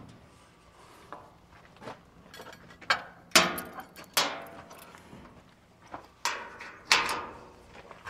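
Sheet-metal side shield of a Vermeer 504I Silage round baler being swung open and handled: a few loud metal clanks that ring briefly, about three and four seconds in and twice more near the end, with lighter knocks and rattles between.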